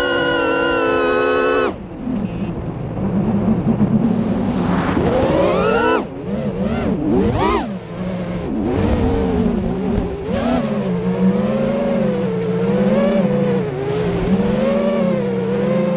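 A steady, many-toned sound cuts off abruptly just under two seconds in. It gives way to the whine of an FPV racing quadcopter's brushless motors, wavering up and down in pitch with the throttle, with sharp rising bursts around five and seven and a half seconds in.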